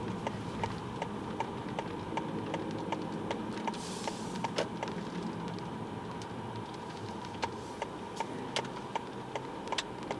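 Car turn-signal indicator ticking steadily, about two clicks a second, over the low hum of the idling car inside the cabin.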